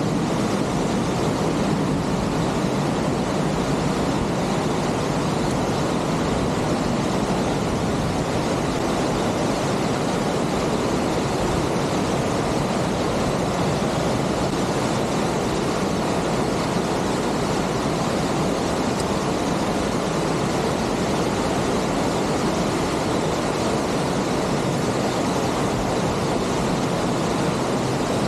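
Steady rushing of a waterfall, an even, unbroken noise.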